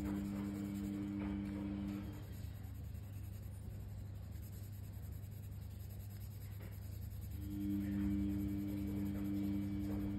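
Colored pencil scratching on paper as it shades in. A steady low two-note tone of background music sounds for the first two seconds, stops, and comes back about seven and a half seconds in.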